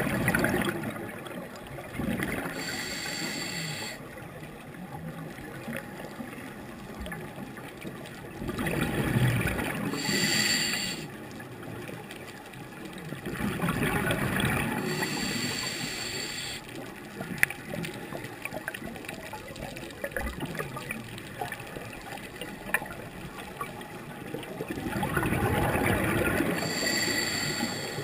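Scuba diver breathing through a regulator underwater: four slow breaths, about one every ten seconds. Each exhale is a loud gurgling rush of bubbles from the exhaust valve, and each inhale a hiss with a thin whine. Between breaths there is a steady underwater hiss with a couple of small clicks.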